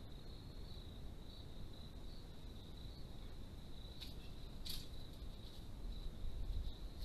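Crickets chirping at night in a steady high trill, over a low background rumble. Two brief scratchy noises come about four and five seconds in.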